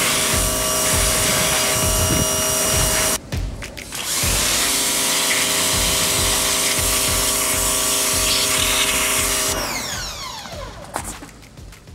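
Pressure washer running, a steady motor whine over the hiss of the water jet. It cuts out briefly about three seconds in and starts again, then the motor winds down with a falling pitch near the end.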